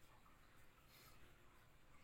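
Near silence: faint room tone with a soft click or two.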